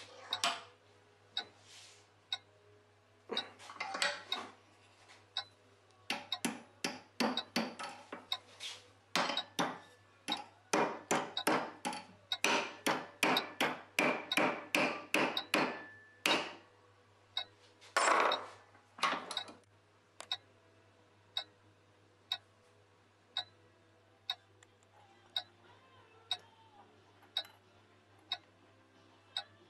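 A small hammer tapping metal, striking a strip against a round rod clamped in a bench vise to bend it to shape for a fly spring. The taps come in irregular runs from a few seconds in until about two-thirds of the way through, fastest in the middle. A clock ticks about once a second throughout.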